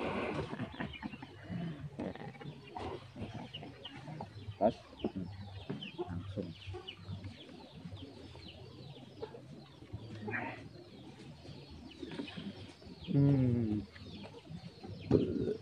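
Chickens clucking and chirping throughout, with a goat bleating loudly about thirteen seconds in.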